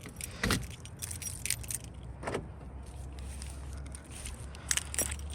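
Clicks and rattles of a small portable weather radio being handled, over a steady low hum that gets stronger about halfway through.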